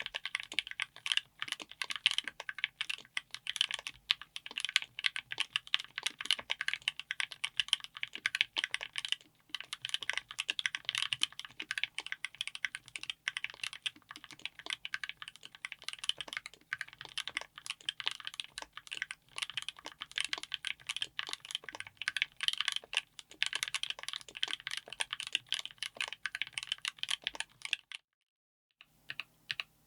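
Fast typing on a mechanical keyboard fitted with Gateron Smoothie Strawberry linear switches (full POM housing and stem) on an FR4 plate in an aluminium case. The keystrokes come densely and unevenly, then stop about two seconds before the end.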